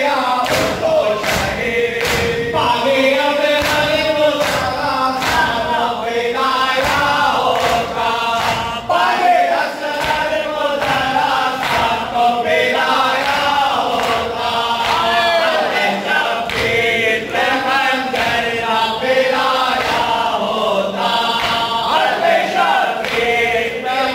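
A crowd of men chanting a noha, a Shia mourning lament, in unison behind a lead reciter on a microphone. Rhythmic matam, open hands striking bare and clothed chests, keeps a steady beat under the chant.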